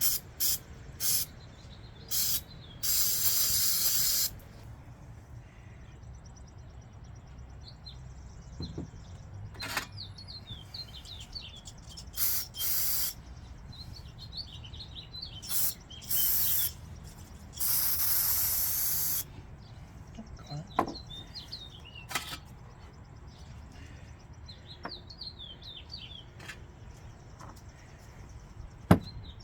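Aerosol can of solvent spraying in a series of hissing blasts, mostly short squirts with a few longer ones of a second or more, while birds chirp in the background. A sharp knock comes near the end.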